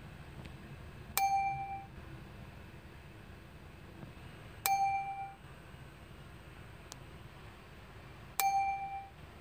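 A short, bright ding sound effect, heard three times about three and a half seconds apart, each identical strike ringing out for about half a second.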